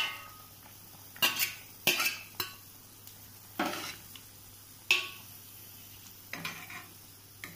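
A metal ladle stirring in a steel kadai of simmering fish stew. It clinks and scrapes against the pan about six times, roughly a second apart.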